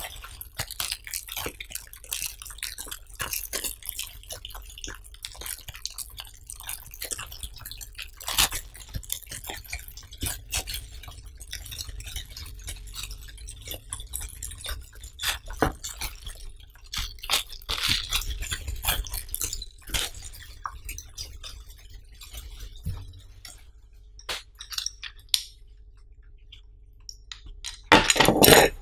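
Clear plastic packaging bag crinkling and crackling in irregular bursts as it is handled and opened. A louder burst comes near the end as the strap is pulled out.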